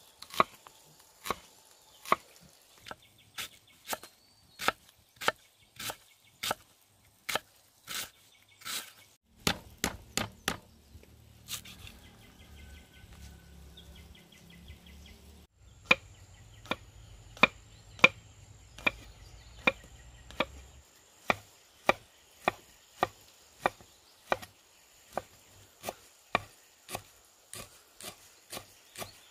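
A large kitchen knife chopping onion and lemongrass on a thick round wooden chopping block: a steady series of sharp knocks, a little over one a second, with a pause of a few seconds in the middle.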